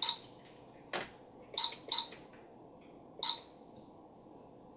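Disney Mickey Mouse Clubhouse toy cash register giving four short, high electronic beeps, two of them close together, with a single plastic click about a second in.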